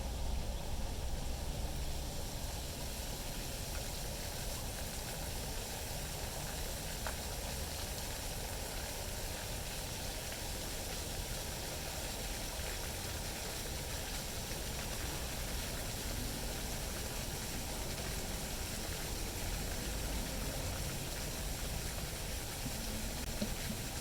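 Wind buffeting the microphone: a steady rushing hiss over a low, fluttering rumble.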